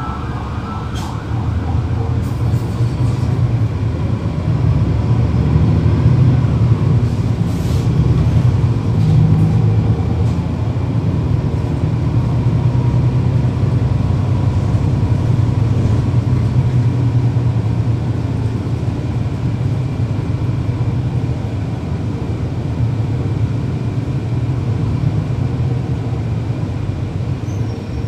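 Cummins ISL9 diesel engine of a NABI 40-SFW transit bus heard from on board while the bus is driven. It grows louder over the first few seconds, then runs steadily.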